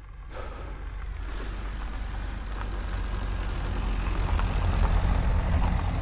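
Wind buffeting the camera microphone: a steady low rumble with hiss that builds up over the first few seconds.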